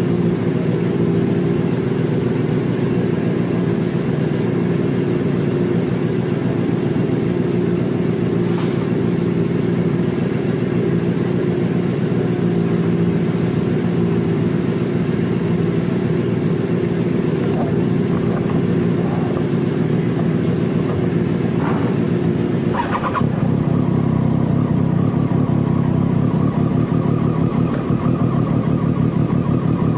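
Motorcycle engine running at a steady, unchanging speed. About twenty-three seconds in there is a click, and the engine note becomes a little louder and fuller.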